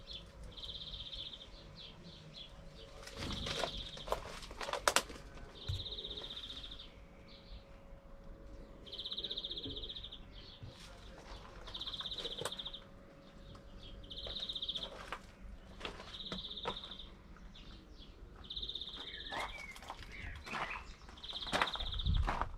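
A bird repeating a short, high trill about every two seconds, with scattered clicks and knocks close by.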